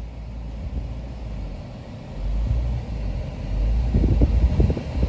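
Low rumble of a car heard from inside the cabin, growing louder about two seconds in, with a run of knocks and bumps near the end.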